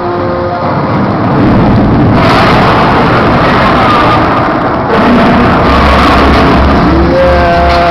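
Loud arena crowd roar over booming PA sound during a basketball starting-lineup introduction, overloading the phone's microphone; a deep bass rumble comes in about two thirds of the way through.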